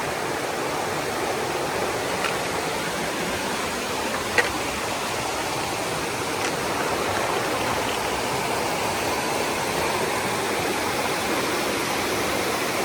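A river rushing close by, a steady sound of running water, with a single sharp click about four seconds in.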